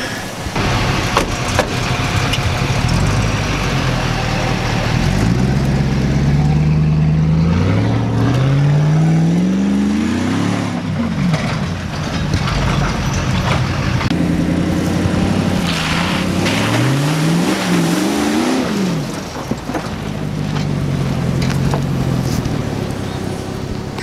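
Chevrolet Silverado pickup's engine revving hard as the truck accelerates across a dirt field, its pitch climbing and falling back several times, over the rush of tyres and wind.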